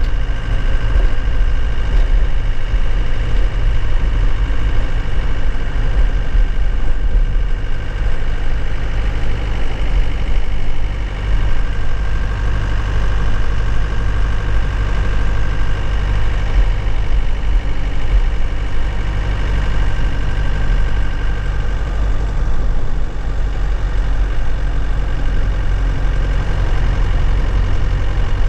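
Engine of a 2001 Nissan Cabstar light truck running steadily while driving, heard from inside the cab: a loud, even low drone with a faint thin high whine over it.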